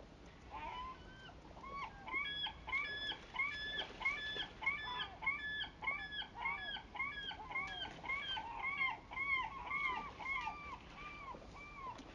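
A bird calling in a long rapid series of honking calls, about two to three a second, loudest in the middle and trailing off near the end.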